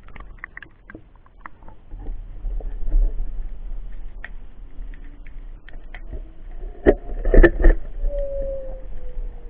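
Underwater sound: scattered clicks and knocks over a low rumble. A cluster of loud knocks comes about seven seconds in, and a faint tone slides slowly lower near the end.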